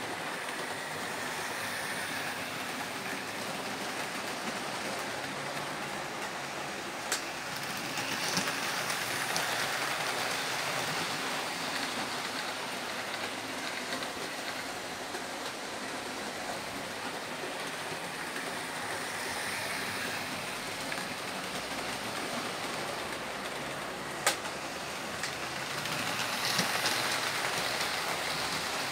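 OO scale model trains running on the layout's track: a steady rolling hiss of wheels and motors. It grows louder about a third of the way in and again near the end as a train of green coaches passes close. Two sharp clicks stand out, one about a quarter of the way in and one near the end.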